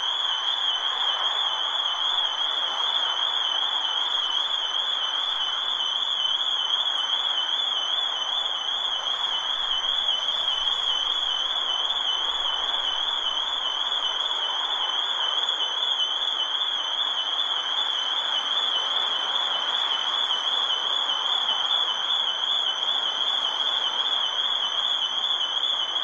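Security alarm sounding one continuous high-pitched tone that warbles rapidly up and down without a break, over a steady background hiss.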